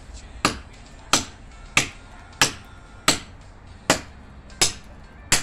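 Machete chopping into an upright firewood branch: eight sharp strikes at a steady pace, about one every two-thirds of a second.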